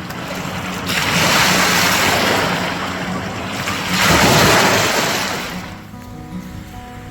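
Lake Michigan waves breaking on the beach in two surges, the first swelling about a second in and a louder one about four seconds in, washing out and fading near the end. Soft background music runs underneath.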